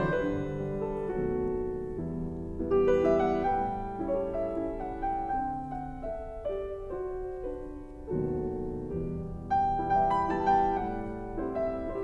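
Piano music. New phrases enter more loudly about three seconds in and again about eight seconds in.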